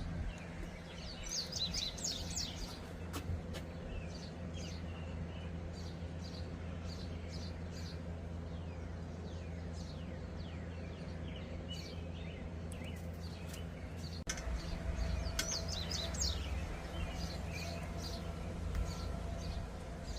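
Small birds chirping outdoors, many short falling chirps in clusters, over a steady low background hum that swells from about fourteen seconds in.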